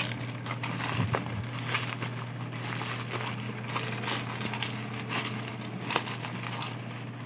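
Bubble wrap and taped plastic packaging being crinkled and pulled apart by hand, with irregular crackles.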